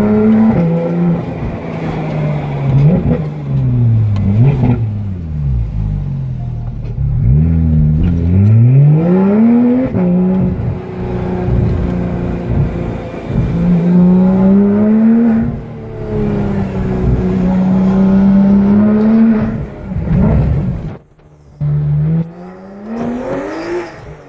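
Porsche 991 GT3's flat-six engine heard from inside the cabin, revving up and down as the car accelerates and shifts. The pitch climbs, drops quickly and climbs again several times, with steadier stretches of cruising in between. Near the end it almost cuts out twice.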